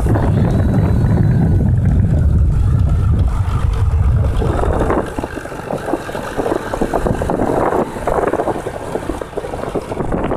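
Wind buffeting the microphone of a vehicle driving along a road, with the vehicle's running and road noise under it. The heavy low rumble eases about halfway through, leaving lighter, uneven gusts.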